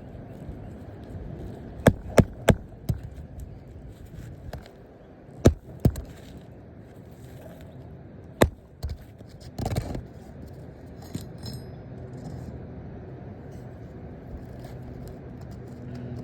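Hand tools knocking and scraping on asphalt roof shingles during a shingle repair: a handful of sharp, irregular knocks, three of them close together early on, and a short scraping rustle about ten seconds in.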